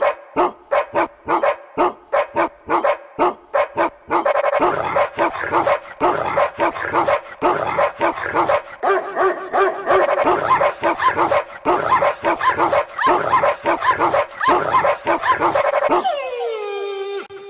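Dogs barking: short sharp barks about three a second, then a denser run of overlapping barks, ending with a long falling howl near the end.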